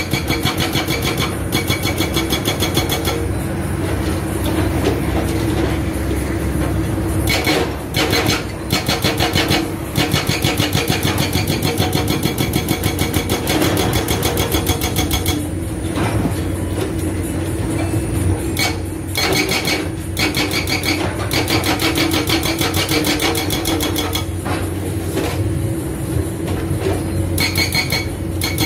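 Excavator-mounted hydraulic breaker hammering in rapid, regular blows over the excavator's steady diesel engine, stopping briefly a few times before resuming.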